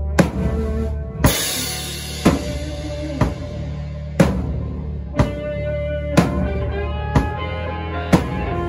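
Drum kit playing a slow, heavy doom-metal beat, with a hard drum hit about once a second and a cymbal crash about a second in, over sustained low notes of a backing track.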